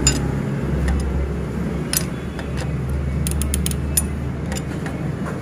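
Sharp metallic clicks and ticks of tools and parts while a motorcycle starter motor is being refitted, with a quick run of clicks around the middle, over a low steady hum.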